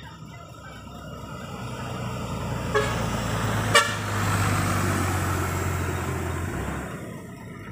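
A large vehicle passes close by, its engine and tyre noise swelling and then fading, with two short horn toots about a second apart near the middle.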